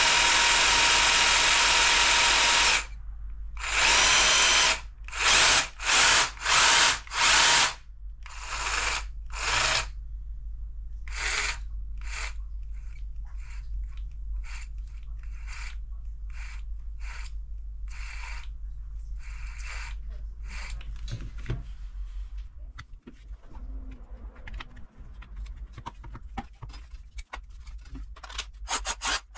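Bosch GST 18V-LI cordless jigsaw's motor and blade drive running at full speed for about three seconds with the housing open, then triggered in a series of short bursts that get shorter and fainter. The last third holds quieter clicks and rubbing of the plastic housing being handled.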